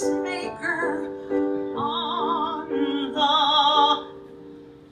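Female show-tune singing with vibrato over piano accompaniment, ending on a loud held note that stops about four seconds in; the sound then dies away.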